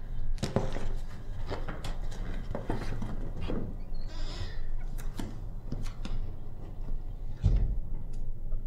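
A paper folder being handled and opened, with a short papery rustle about four seconds in, among a run of light clicks and knocks and a dull low thump near the end.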